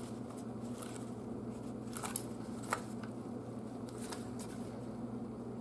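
A few faint clicks and handling sounds from working the plastic turn signal housing, over a steady low hum.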